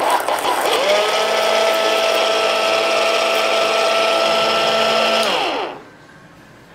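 Small electric motor of a homemade cardboard pencil sharpener running and sharpening a pencil. It whirs loudly with a whine that rises about a second in and holds steady, then falls as the motor winds down and stops about five and a half seconds in.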